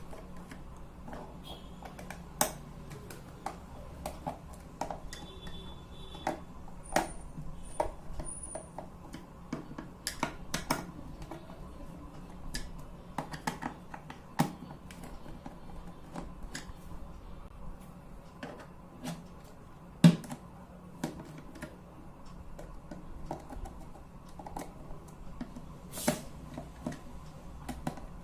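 Irregular small clicks and taps of a screwdriver working at the screws of a plastic doorbell case, with knocks from handling the case; one sharper knock about twenty seconds in.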